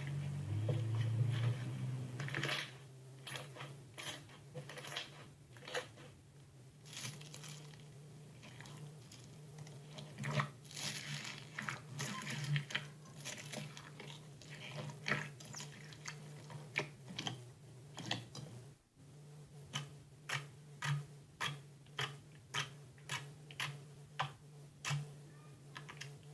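Hands squishing and working slime, making irregular wet clicks and crackles, then a regular run of sharp pops about twice a second over the last several seconds. A steady low hum runs underneath.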